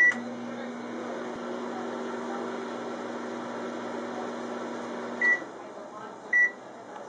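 GE microwave oven beeping as it is started, then running with a steady hum for about five seconds. The hum stops with a beep, and another beep follows about a second later.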